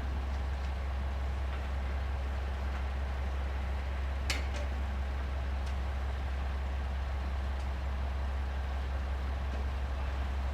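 Steady low engine drone with an even background hiss, and one sharp click about four seconds in.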